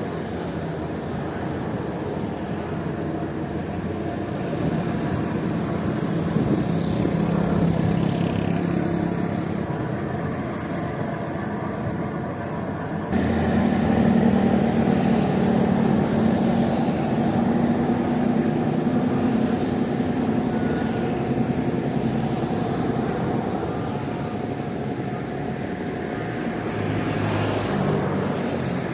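Majestic Kawanua II fast ferry's engines running with a steady low drone. The loudness steps up suddenly about halfway through and stays higher.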